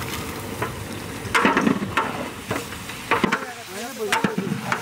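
Chicken meat sizzling as it fries in hot oil and spice paste in a saucepan, with a louder burst of sizzling about a second and a half in and several sharp knocks of a spoon against the pan as it is stirred.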